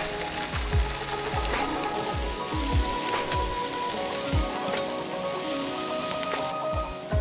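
Sliced onion and carrot sizzling in a hot stainless steel frying pan while a slotted metal spatula stirs and tosses them. A few dull knocks sound through the stirring.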